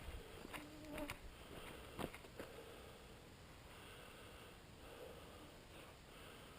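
Faint whine of mosquitoes flying close around the microphone, with a few soft clicks in the first half.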